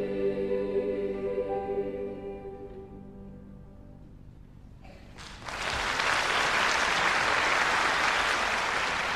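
A children's choir's final held chord dies away over the first few seconds; after a short hush the audience bursts into steady applause about five seconds in.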